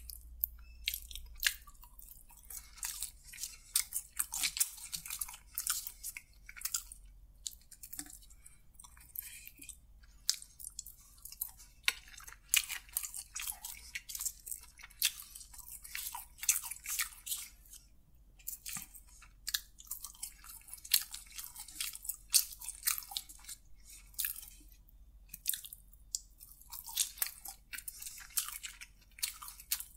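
Close-miked chewing of crispy fried chicken, a continual run of quick, sharp crunches.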